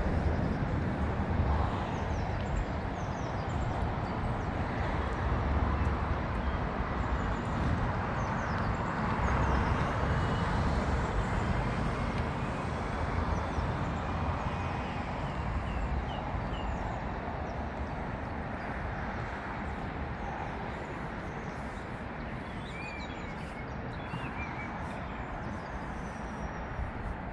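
Steady rumble of road traffic that slowly fades, with small birds chirping faintly over it.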